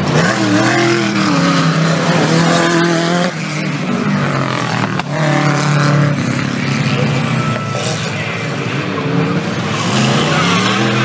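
Engines of 4WD off-road race vehicles revving hard, their pitch rising and falling again and again as they race on a dirt course.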